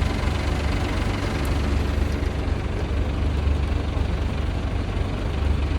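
A heavy machine's engine running steadily, a low rumble with no change in speed.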